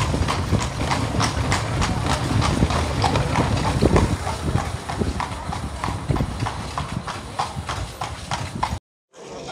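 Horse-drawn carriage on the move: the horse's hooves clip-clop on the street at a steady walk, about four beats a second, over a continuous low rumble. The sound cuts off suddenly near the end.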